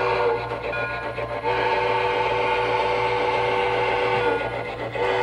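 Horn of a DCC sound-equipped model diesel locomotive, a multi-note chord, sounding in several blasts: one ending just after the start, a long one of about three seconds in the middle, and a short one near the end. A steady low hum runs underneath.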